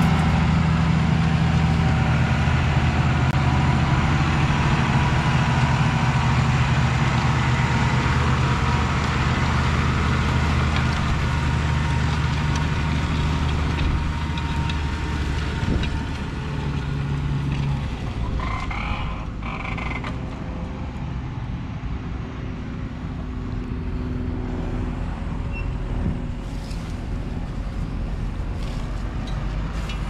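Case 150 tractor's diesel engine working steadily under load, pulling a Lemken five-furrow plough through the soil. It is loudest for the first 18 seconds or so, then fades somewhat as the tractor draws away.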